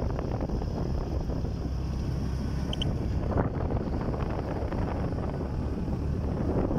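Steady wind buffeting the microphone over the low rumble of a vehicle driving along a road.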